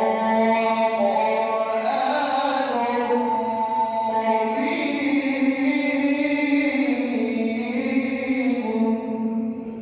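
A man's voice chanting Quran recitation in the melodic tajweed style, drawing out one long ornamented phrase that fades away near the end.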